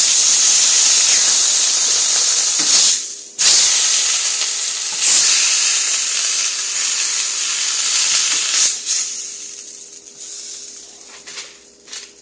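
Butter and grilled bologna-and-cheese sandwiches sizzling hard in a hot pan, a loud steady hiss. It cuts out briefly about three seconds in and dies down over the last few seconds, with a couple of light clicks near the end.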